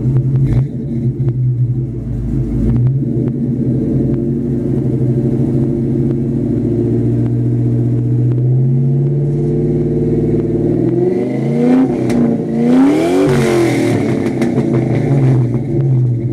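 2000 Ford Mustang GT's 4.6-litre V8 idling through an off-road X-pipe and Flowmaster mufflers, then two quick blips of the throttle about eleven and thirteen seconds in, the second rising higher, with a few sharp pops around them before it settles back to idle.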